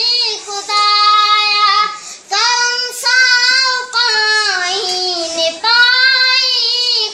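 A boy singing a Sindhi devotional prayer poem (dua) unaccompanied, in long held phrases with short breaks for breath between them.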